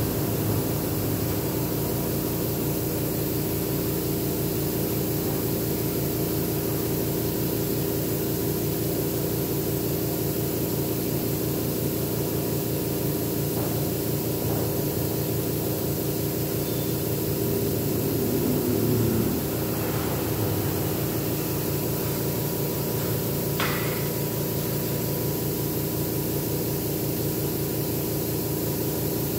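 Air compressor running steadily to feed an airbrush: a constant low motor hum with a hiss over it. There is a short click about three-quarters of the way through.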